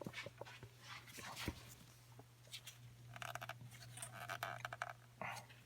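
Faint clicks and rubbing of hands trying to pull a stuck PCV valve out of the Hemi engine's valve cover, with two breathy puffs in the second half and a low steady hum underneath.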